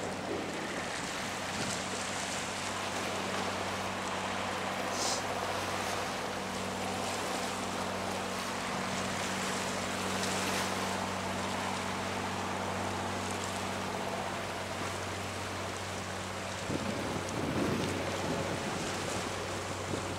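A fishing ferry boat's engine runs steadily as it holds the boat's bow against the shore rocks, with waves washing and wind. Near the end the engine's steady note changes.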